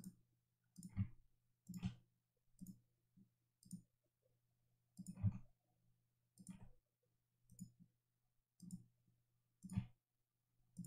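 Computer mouse clicking: about a dozen short, separate clicks, irregularly spaced at roughly one a second, as items are selected on screen.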